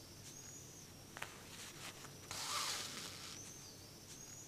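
Hand-sewing through denim with a needle and thread: a small tick as the needle goes through the fabric about a second in, then a longer hiss as the thread is drawn through the denim about two and a half seconds in. A faint, thin high tone comes and goes near the start and end.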